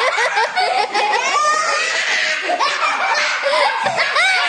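Several young people laughing and shrieking together, with voices overlapping and a little excited talk mixed in.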